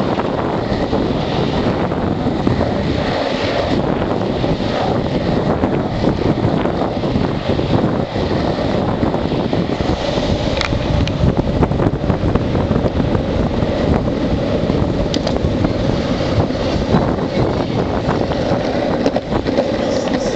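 Longboard wheels rolling fast over rough asphalt, a steady loud rumble mixed with wind buffeting the microphone.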